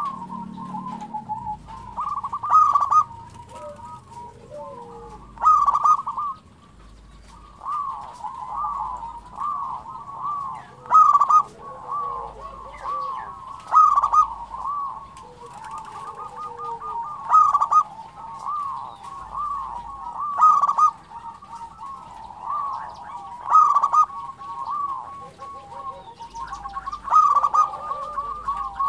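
Zebra dove (perkutut) singing: a steady run of quick, staccato coos, with a louder phrase about every three seconds.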